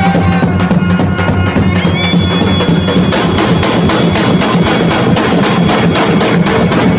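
Lodra, the large Albanian double-headed bass drum, beaten in a fast, steady rhythm of several strokes a second, with a reedy wind instrument playing over it and holding one high note from about two seconds in.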